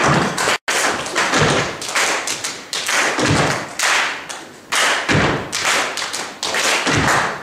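Percussive dance routine: quick runs of sharp taps and heavier thuds struck out on a wooden stage, easing off for a moment just before the middle and picking up again.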